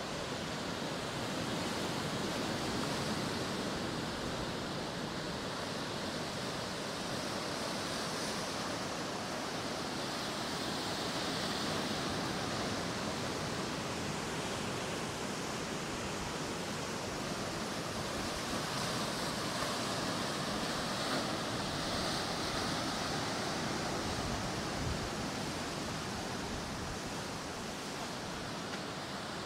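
Sea surf washing onto the shore: a steady rushing hiss that swells a few times, with no distinct impacts.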